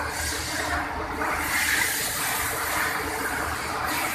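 CNC router machine still running during shutdown: a steady hiss with a low hum underneath.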